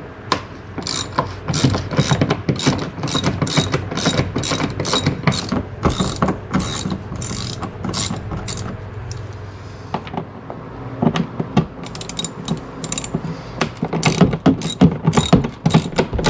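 Hand socket ratchet with a Torx T30 bit clicking in quick runs of strokes as bolts are backed out, with a short lull about ten seconds in before a second run.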